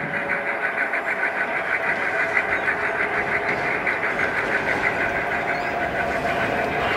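1:29-scale model SD40-2 diesel locomotive running toward the camera, giving a steady diesel-engine sound with an even, rhythmic pulse.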